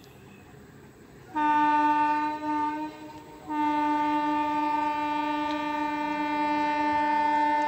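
Horn of an approaching EMU local train sounding in one steady pitch: a blast of about a second starting about a second and a half in, a short break, then a long unbroken blast from about three and a half seconds on.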